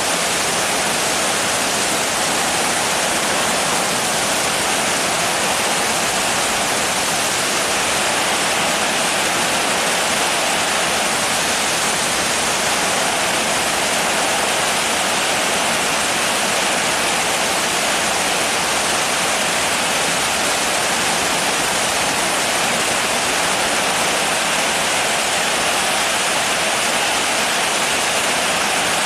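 Steady rain, an even, unbroken hiss with no single drops or other sounds standing out.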